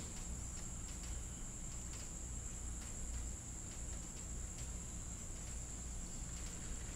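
Crickets chirring in a steady, unbroken high-pitched chorus, with faint irregular clicks of a cat chewing its food close by.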